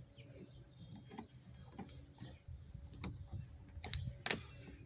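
Irregular light clicks and knocks of small trim screws and plastic interior panels being handled and fitted, with one louder knock near the end.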